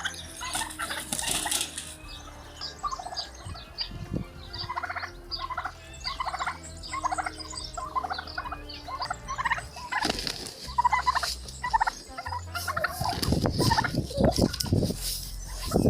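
Birds calling in many short, rapidly repeated calls.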